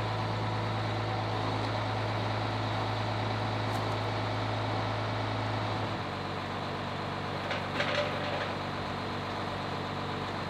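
Engine of a heavy lifting machine running steadily. Its tone changes about six seconds in, and there are a couple of short clanks near eight seconds as the mast is handled.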